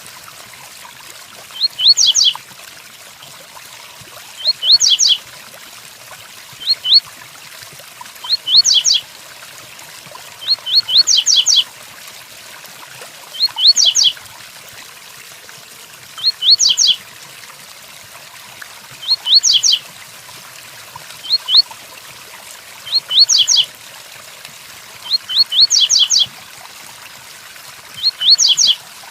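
Double-collared seedeater (coleiro) singing the 'tui-tuí' song type: short phrases of a few quick rising whistled notes, repeated about every two to three seconds. A steady hiss of rain runs underneath.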